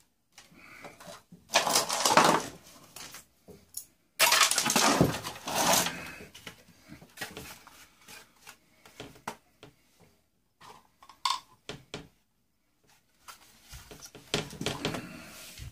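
Boombox parts being handled and pulled apart, metal and plastic clattering and rattling. There are two louder spells of clatter, about two seconds in and a longer one from about four to six seconds, then scattered clicks and knocks.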